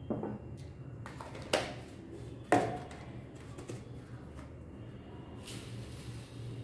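A few sharp knocks of kitchen utensils, the loudest about two and a half seconds in, over a steady low hum.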